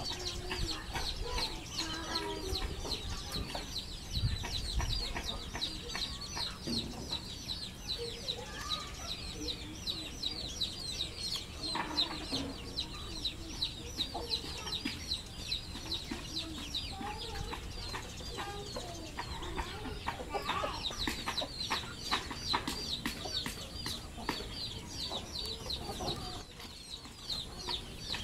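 Chickens clucking in low, short, scattered notes, over a fast, high chirping that repeats steadily underneath.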